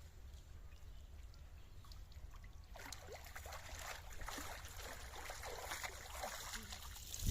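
Faint water trickling and splashing, starting about three seconds in as a run of small irregular splashes.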